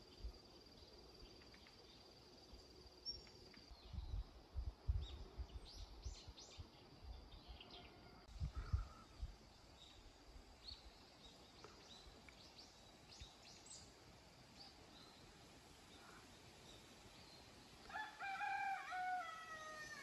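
Faint rural ambience: small birds chirp here and there, a few low thumps come through in the first half, and near the end a rooster crows once, its call falling at the close. In the first few seconds a faint steady high insect trill can be heard.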